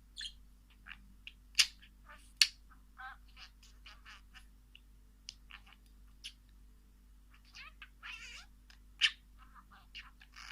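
Birds calling: scattered short, sharp chirps and calls, the loudest about one and a half and two and a half seconds in, with a longer wavering call about eight seconds in.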